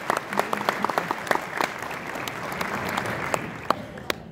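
Audience applauding a performer's introduction, the clapping thinning out about three seconds in and ending with a few scattered single claps.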